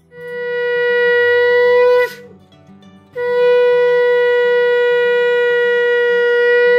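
Conch shell (shankha) blown in two long, steady blasts: a first of about two seconds, then after a short pause a second, longer one. Each dips slightly in pitch as it ends.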